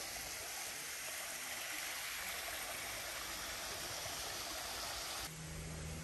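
Small waterfall spilling over rocks into a pond: a steady rush of falling water. It cuts off abruptly about five seconds in, leaving a quieter hiss with a low steady hum.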